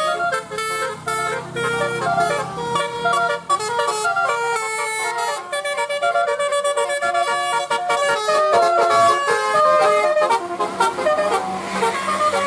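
Bus 'telolet basuri' musical air horn, a nine-note set of eighteen trumpets, playing a fast melody of held notes that step up and down one after another.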